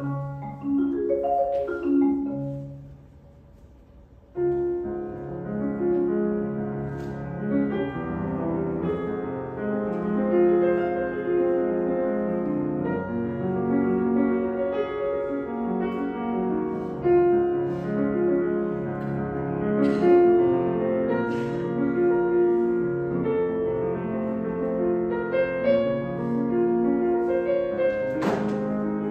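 A marimba strikes a few notes that ring and die away, then after a short pause a piano comes in suddenly and plays a continuous passage alone. The piano is carrying the orchestra's part of a marimba concerto.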